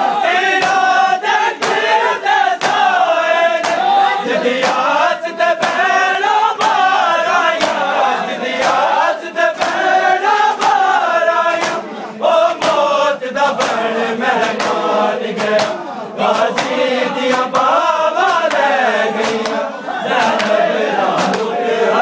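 A crowd of men chanting a mourning lament in unison. Sharp slaps of hands on bare chests (matam) keep a steady beat through the chant.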